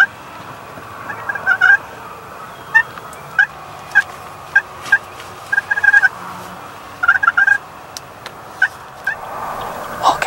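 Wild turkeys gobbling and calling, a string of short rattling calls every second or so.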